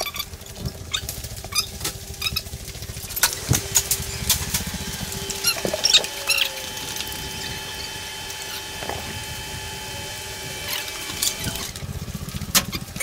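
Irregular footsteps and knocks of a handheld camera being carried on the walk, over a low rumble, with a steady hum of several tones underneath through most of the stretch.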